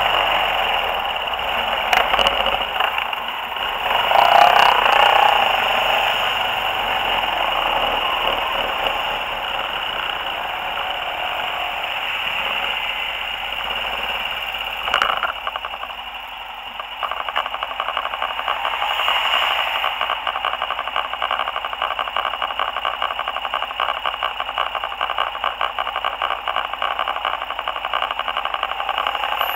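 ATV riding on a paved road, heard through a cheap vehicle-mounted camera: a steady rush of wind and engine noise, with a fast, even rattle from the camera mount over the second half.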